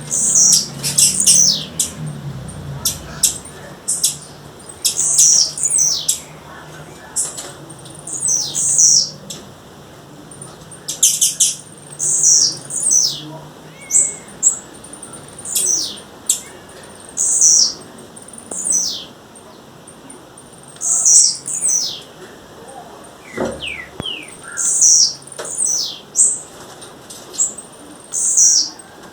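Female blue-black grassquit (tiziu) calling: short, high, sharp notes that fall in pitch, mixed with clicks, repeated every one to two seconds.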